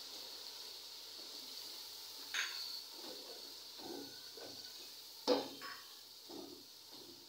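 A cooking spoon stirring and scraping a frying onion-tomato masala in a metal pot, knocking sharply against the pot twice, about two and a half and five seconds in, over a faint steady sizzle of the oil.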